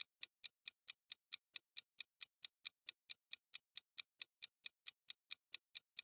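Countdown-timer ticking sound effect: short, even clock-like ticks, about four to five a second, marking the seconds running out on a quiz question.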